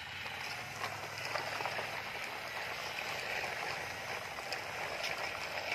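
Steady outdoor background hiss with a faint low hum underneath and a few faint ticks.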